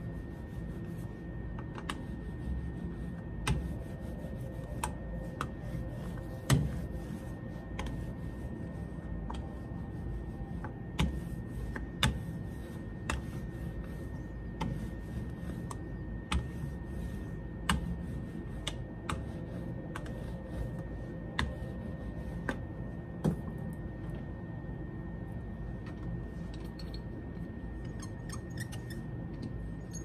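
A wooden rolling pin is rolled over a crocheted doily pressed onto a soft clay slab, making a low rubbing rumble. Light, sharp knocks and clicks are scattered about once a second as the pin and hands shift on the worktable, over a steady faint hum.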